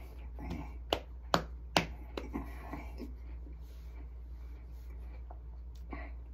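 Three sharp clicks about half a second apart, followed by a few fainter ones, over a low steady hum.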